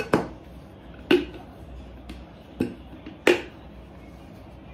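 Plastic snap-lock lid being fitted onto and handled with a glass food storage container: four sharp plastic-on-glass clicks spread over about three seconds.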